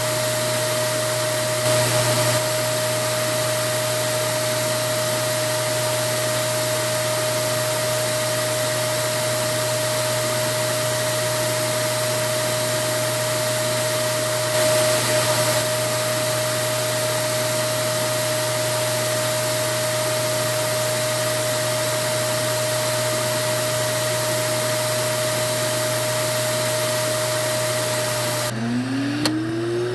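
Vacuum cleaner motor running steadily: a constant rushing noise with one steady whine. Near the end the sound changes: the whine drops out and a lower tone climbs back up in pitch, as if the motor were spinning up again.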